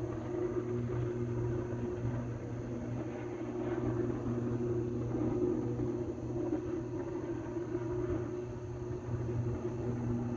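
Electrical arc and fire at a power substation, heard as a steady low hum with a buzz in it that holds at one pitch.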